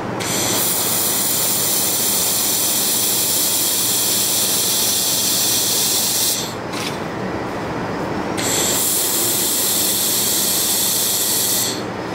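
3 kW handheld laser welding gun hissing as it welds a 3 mm stainless steel square-tube butt joint. There is a long run of about six seconds, a pause of about two seconds, then a second run of about three seconds that cuts off near the end, all over a steady low hum.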